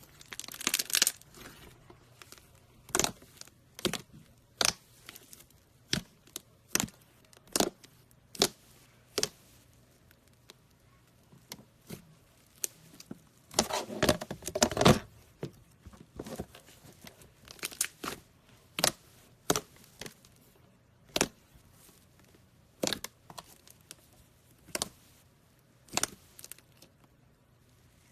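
Slime being mixed and pressed by hand, giving sharp sticky pops and clicks about once a second, with a longer run of crackling about halfway through.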